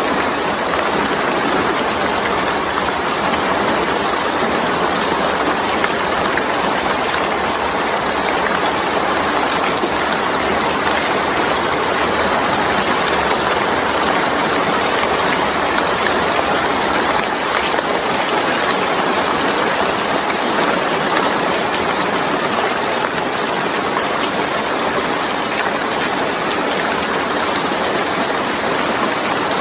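Steady rain, an even unbroken hiss of falling water with no distinct drops standing out.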